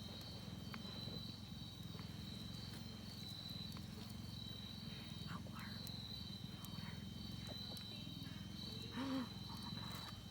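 Steady, pulsing high chirring of insects over a low steady hum, with a few faint short calls and one brief pitched call about nine seconds in.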